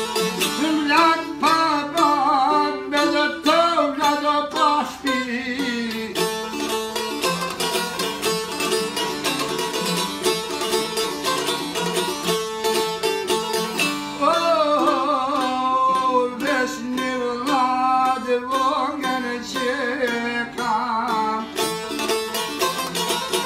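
A man sings an Albanian folk song in ornamented, wavering phrases over rapidly plucked long-necked Albanian lutes (çifteli). The voice drops out about five seconds in and comes back about fourteen seconds in, while the lutes keep playing throughout.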